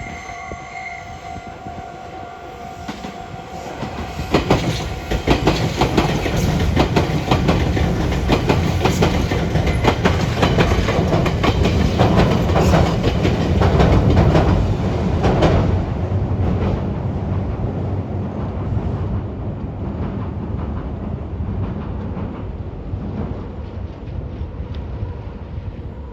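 Meitetsu electric train passing over the junction's points: the wheels give a rapid, dense run of clacks over the rail joints and crossings. The train builds up about four seconds in, is loudest until about sixteen seconds, then fades away.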